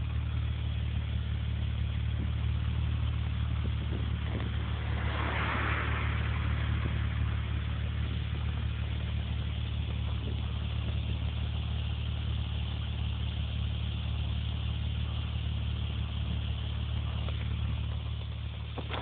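BMW E46 330ci's 3.0-litre straight-six idling through a Blueflame cat-back exhaust, heard close at the tailpipes as a steady, deep exhaust note. There is a brief rush of hiss about five seconds in.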